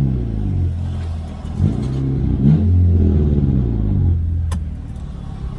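Turbocharged TFSI engine of an Audi A3 8P with a downpipe and 2.5-inch straight-pipe exhaust, revved in neutral. Two short throttle blips, about one and a half and two and a half seconds in, each settle back to a steady low idle note, with a sharp click near the end.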